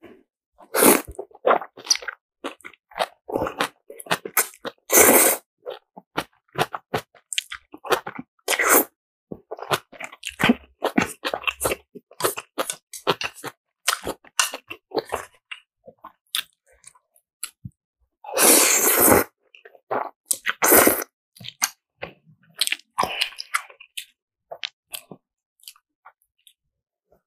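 Close-up eating sounds: spicy black bean noodles being slurped and chewed, many short wet smacks and bites, with a few longer, louder slurps about five seconds in and again around eighteen to twenty-one seconds.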